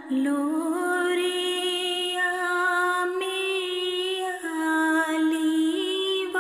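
A solo voice singing a ginan, an Ismaili devotional hymn, in long held notes that slide upward at the start.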